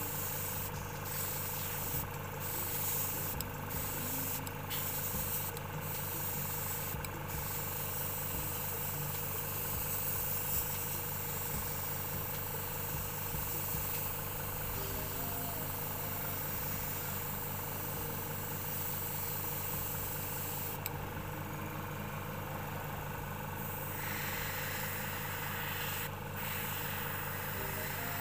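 A small motor running with a steady hum, with about six brief sharp strokes over the first seven seconds and another near the end.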